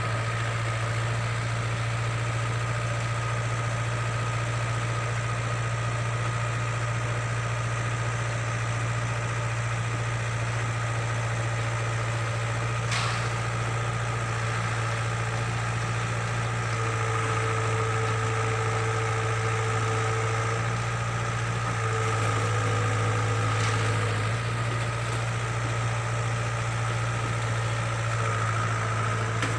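Hydraulic excavator's diesel engine running steadily as the boom and bucket are worked, with a higher whine coming and going in the second half. There are two short sharp knocks, one about midway and one later.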